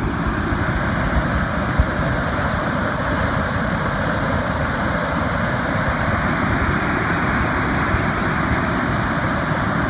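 Creek in flood, a fast brown torrent churning over rocks and past bridge piers: a loud, steady rush of water.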